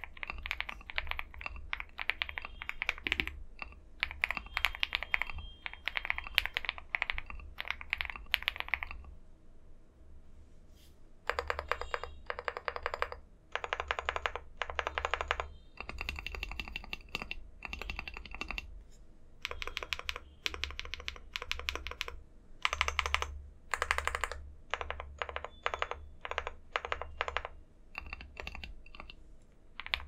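Leobog Hi75 mechanical keyboard with KTT Kang White linear switches, tape-modded and with lubed stabilizers, being typed on quickly. A steady stream of keystrokes breaks off for about two seconds around a third of the way in, then comes back as short bursts of rapid key presses with brief gaps between them.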